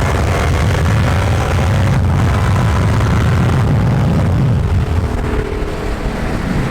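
Car engine running hard at speed, with wind and road noise; a loud, low drone that eases off slightly about five seconds in.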